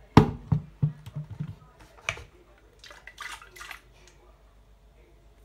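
A kettle being handled: a sharp click, a quick run of clunks and another knock, then brief splashing of water.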